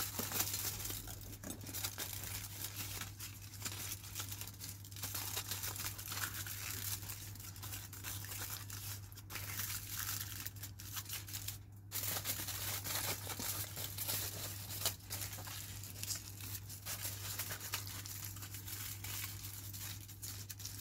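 Aluminium foil crinkling and crackling as it is pressed and smoothed by hand into a round baking pan to line it.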